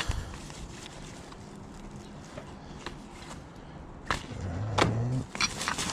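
Objects being handled while a storage-locker box is sorted: quiet background at first, then a knock about four seconds in and a few clicks and clatters near the end, with a brief low hum between them.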